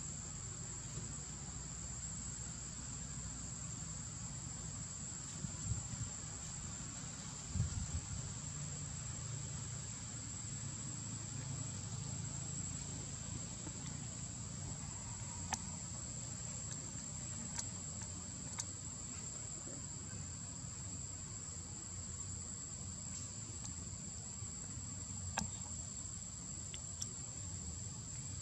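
Steady, high-pitched insect drone, with a low rumble underneath, a few faint clicks and one short soft thump about a quarter of the way in.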